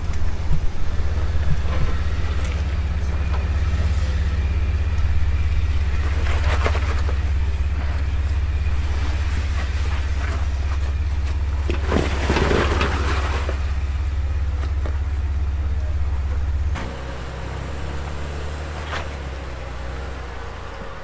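Off-road 4x4 engines running under load as the vehicles crawl up a rock ledge over a steady low rumble, with a louder surge about twelve seconds in. The level drops abruptly about seventeen seconds in as another vehicle's engine takes over.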